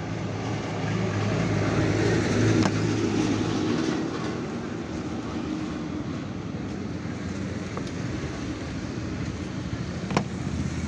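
Intex 6 kg semi-automatic top-loading washing machine running its wash cycle: a steady motor hum that swells for a couple of seconds near the start and eases back, with a sharp click near the end. It is running normally, with no abnormal wash noise that the technician can find.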